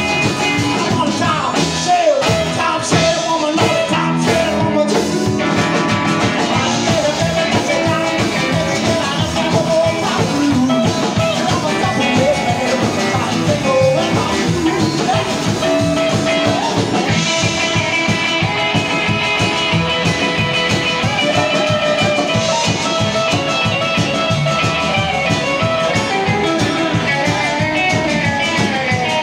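Live country-rock band playing: electric guitar, strummed acoustic guitar, upright bass and drum kit, with a steady driving beat.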